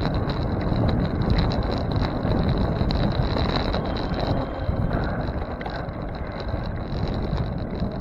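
Wind buffeting the microphone of a camera on a moving bicycle, with road and tyre noise underneath and a thin steady high whine.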